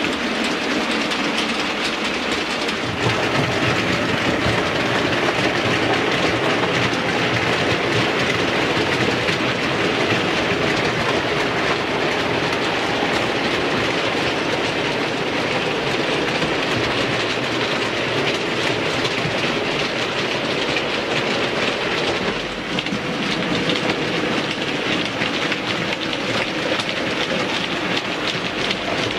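OO gauge model goods trains running along the track: a continuous clickety-clack rattle of small metal wheels over the rail joints.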